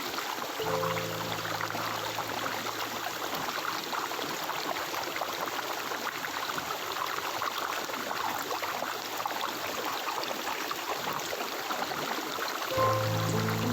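Stream water flowing steadily, with a soft, low held chord of music underneath; the music grows louder near the end.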